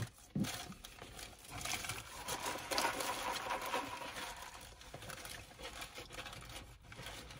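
Close-up eating sounds: the rustle and crinkle of fast-food paper wrappers and bags being handled, with small clicks and chewing, busiest a couple of seconds in.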